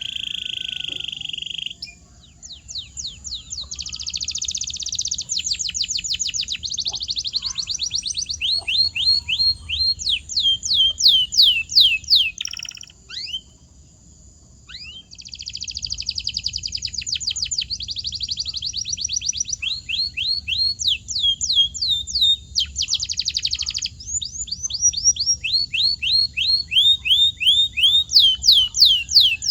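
Domestic canary singing: fast trills of quickly falling high notes, switching between different tours, with a steady buzzing roll at the start and a brief pause about halfway through.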